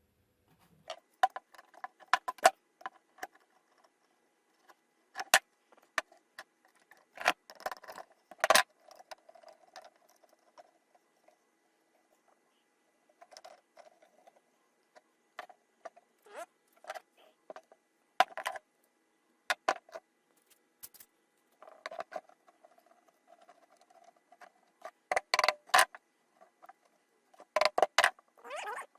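Irregular clicks, light knocks and brief scraping sounds of hand tools and wood being handled at a workbench, with the loudest sharp knocks near the start and again near the end.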